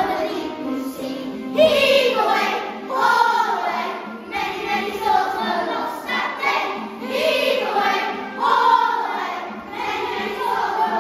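A class of young children singing a song together.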